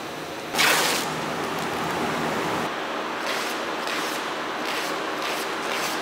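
Plastic wrapping film crinkling loudly as it is handled over a stack of steel sheets. Then packing tape is pulled off its roll in several short rasps, over a steady factory hum.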